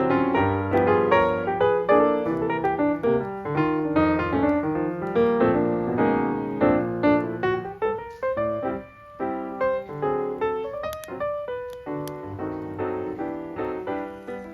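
Background piano music, a flowing run of notes that grows quieter toward the end.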